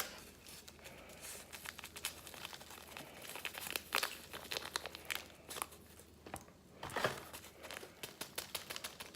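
Paper packaging being handled, crinkling and tearing in scattered crackles, louder about four seconds in and again about seven seconds in.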